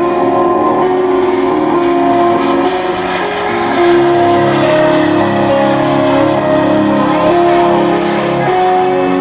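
Instrumental music with held chords that change every second or two.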